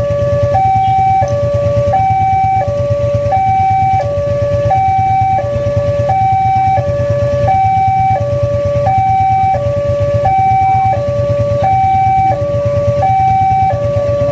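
Railway level-crossing warning alarm, an electronic two-tone hi-lo signal, alternating steadily between a higher and a lower tone a little over half a second each: the crossing is closed for an approaching train. A steady low rumble runs underneath.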